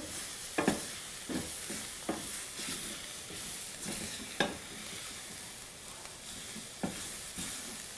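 Onion, garlic and ground spices frying in a stainless steel sauté pan with a steady sizzle. A wooden spatula stirs and scrapes the mixture, knocking against the pan a few times.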